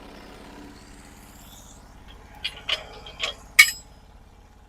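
Sawmill engine idling low and steady, with a few sharp knocks and clinks in the middle, the loudest about three and a half seconds in.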